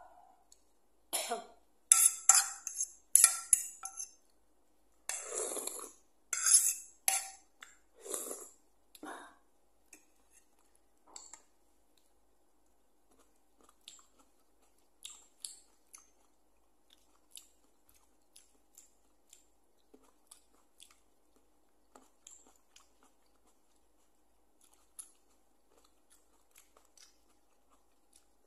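Close-miked eating sounds. First come several loud slurps as she sips from a plate of noodles tilted to her mouth. After about nine seconds these give way to softer, scattered clicks of chewing on green grapes.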